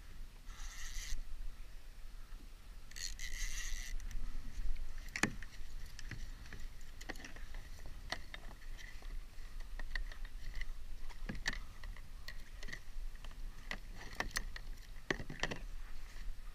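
Fishing gear being handled on a plastic fishing kayak: scattered sharp clicks and knocks of reel, rod and rigging. Two short bursts of hiss come within the first four seconds.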